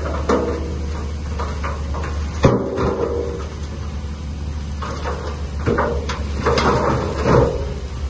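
Crawler bulldozer working: a steady low engine drone under irregular clanks and creaks from its steel tracks and blade, with a sharp knock about two and a half seconds in.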